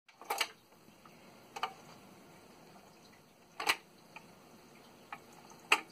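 Garrard 42M record changer cycling: four sharp mechanical clicks about two seconds apart, the last two the loudest, as the change mechanism works before the tone arm swings out over the record.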